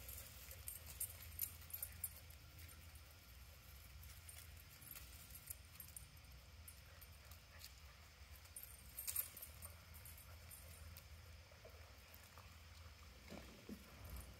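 Near silence outdoors: a faint steady low rumble, with a few brief high jingling clicks about a second in and again about nine seconds in.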